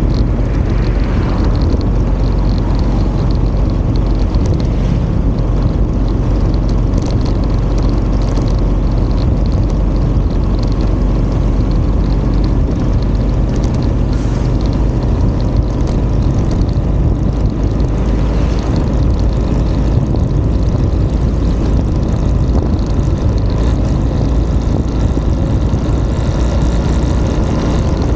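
Steady, loud rumble of wind and road noise from a moving vehicle, picked up on the camera's microphone, with a faint steady whine above it.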